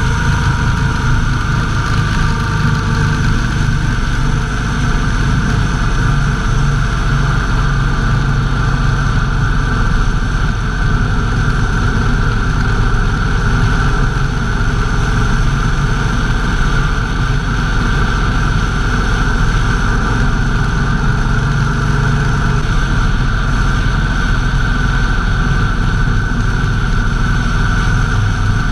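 Motorcycle engine running steadily while riding at an even cruising speed, with a constant rush of wind and road noise.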